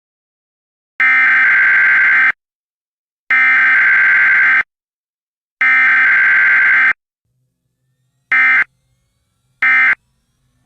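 Emergency Alert System data tones: three harsh buzzing bursts of about a second each, a second apart, which is the pattern of the alert's header, followed near the end by two short bursts, the start of the end-of-message tones.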